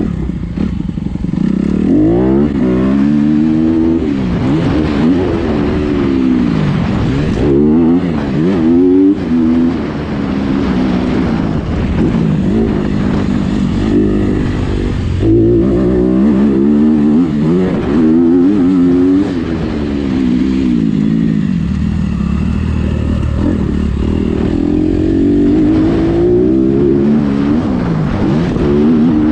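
Honda motocross bike's engine revving up and dropping back over and over as it is ridden hard round a dirt track, close to a GoPro camera on the bike.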